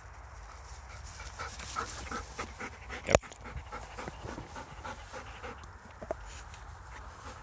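A dog panting quickly, about four breaths a second, after running a retrieve. A single sharp click a little past three seconds in is the loudest sound.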